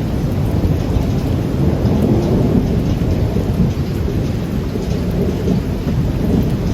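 Thunderstorm: rain falling with a steady, deep rumble of thunder.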